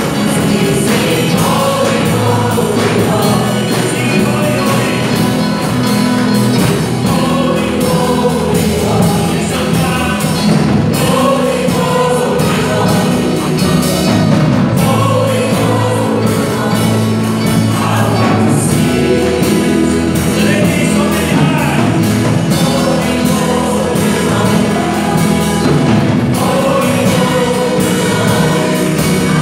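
A worship team of mixed male and female voices singing a contemporary praise song together, accompanied by a live band of keyboard, acoustic guitar and electric bass.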